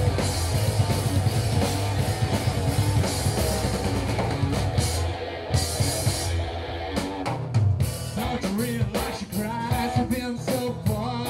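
Live rock band playing loud: drum kit, electric guitar and bass through amplifiers, with the drum hits standing out more sharply from about seven seconds in.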